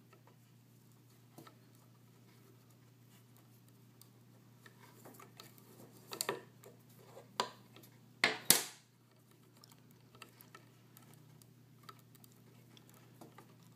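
Nylon paracord being worked into a square knot and pulled tight, with soft rustles and scattered small clicks, and a few sharper swishes of cord drawn through, the loudest a pair about eight seconds in. A steady low hum runs underneath.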